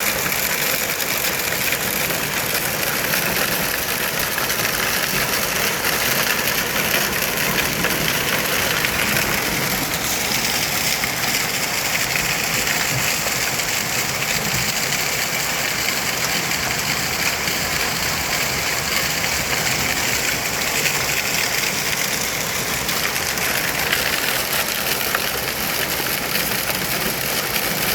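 Hail falling hard, a dense, steady clatter of hailstones striking hard surfaces.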